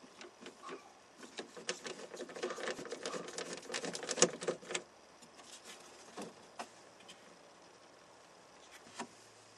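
Small hard parts being handled: a quick clatter of clicks and rattles for about three seconds, then a few scattered clicks.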